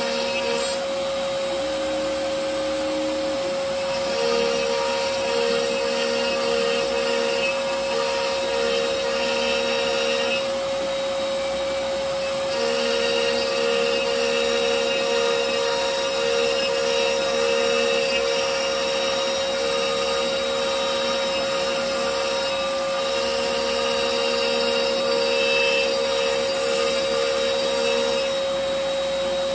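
CNC router spindle running with a steady whine while its bit cuts maze channels in MDF. The cutting noise comes and goes as the bit moves between passes, louder for long stretches.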